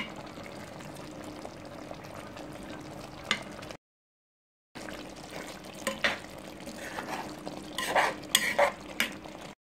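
Coconut-milk rundown simmering and bubbling in a pot, with a spoon stirring and scraping against the pot in the second half, the scrapes loudest near the end. The sound cuts out completely for about a second near the middle.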